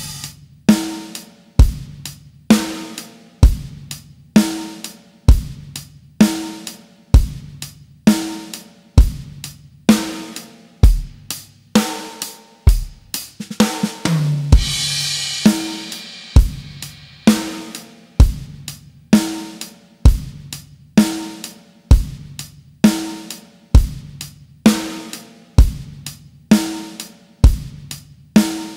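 Pop drum-kit practice loop at 65 beats per minute in 4/4: bass drum, snare and hi-hat keeping an even beat. About halfway through comes a short fill into a cymbal crash that rings for over a second.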